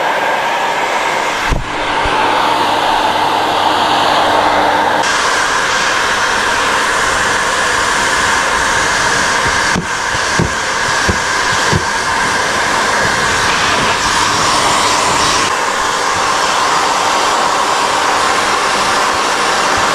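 Electric hot-air blower running steadily, blowing hot air to warm vinyl graphics for smoothing down. Its rushing tone shifts a few times, with a few soft knocks about halfway through.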